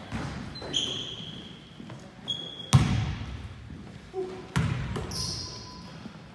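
Basketball bouncing on a hardwood gym floor, a few separate bounces about two seconds apart that echo around the hall, the loudest near the middle. Short high squeaks of sneakers on the court come in between.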